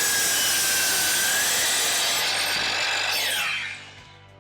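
Electric power saw cutting through a wooden board, its motor whine steady under the cutting noise, then falling in pitch and winding down about three seconds in.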